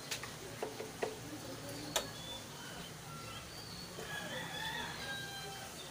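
A few sharp clicks and taps as a tool works at the yellow pressure switch of an air compressor, the loudest about two seconds in. In the second half, short high calls sound in the background.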